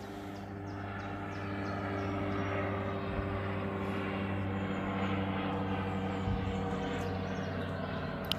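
Steady engine drone, swelling slightly in the middle, with a short click near the end.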